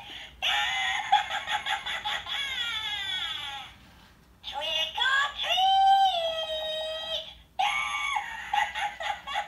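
Haunted Hill Witch animatronic's recorded witch voice, cackling and shrieking through its small built-in speaker with a thin, tinny sound. It comes in three runs of sliding, mostly falling notes, with short breaks about four and seven and a half seconds in.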